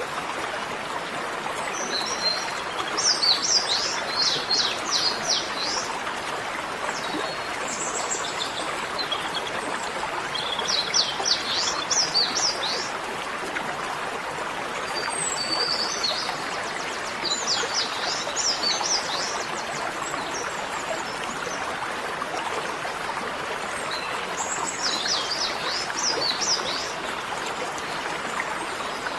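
Small birds chirping in four or five bouts of quick, high trills over a steady rushing hiss.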